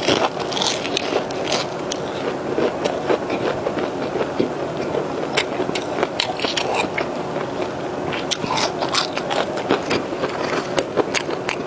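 Close-miked chewing of a crisp fried snack stick, with many sharp crackly crunches throughout.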